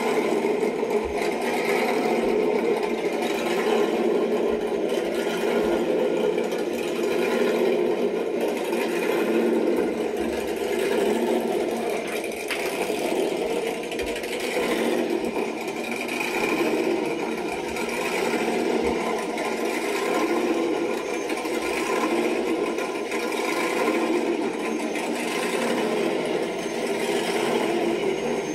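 Steady, rapid mechanical chatter with no bass, as through a laptop's small speakers.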